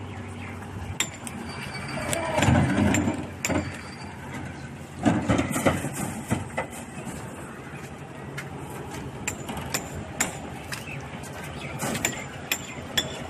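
Construction-site work noise: scattered sharp metallic clinks and taps, some with a short high ring, over a steady background. Louder, heavier stretches of noise come about two seconds in and again around five seconds.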